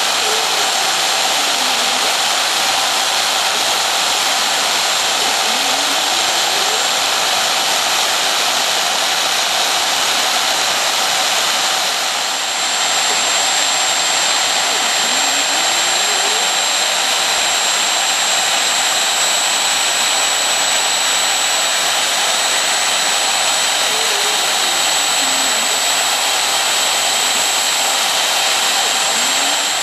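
CNC router spindle motor running at high speed with a thin steady whine while its bit mills a foam block. Faint low tones slide up or down every few seconds.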